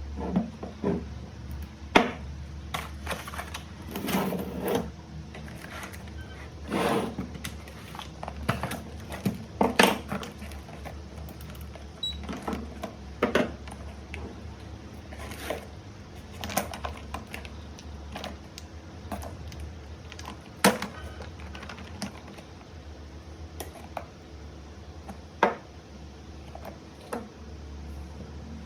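Irregular sharp clicks, taps and clinks from work on an 18650 lithium-ion battery pack, a few of them loud, at uneven spacing over a steady low hum.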